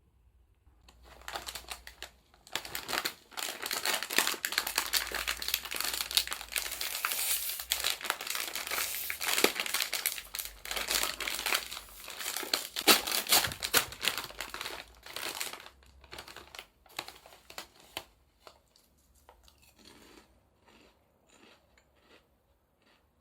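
Packaging crinkling and rustling as it is handled, loud and continuous for about fifteen seconds, then thinning out to scattered rustles.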